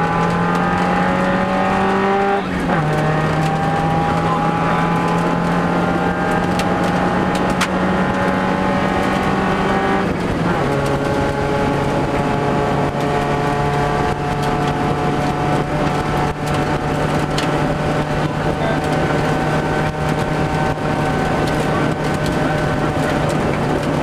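Subaru Impreza rally car's flat-four engine heard from inside the cabin under hard acceleration, its pitch climbing steadily and dropping sharply at two upshifts, about two seconds in and about ten seconds in, then holding nearly steady. A steady rush of gravel road noise runs beneath it.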